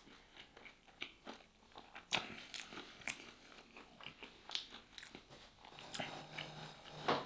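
Close-miked eating: crunchy bites and chewing of crispy food, with irregular crisp crunches throughout.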